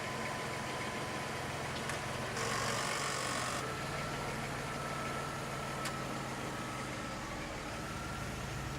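Car engine idling steadily, with a short hiss lasting about a second a couple of seconds in and a faint click or two.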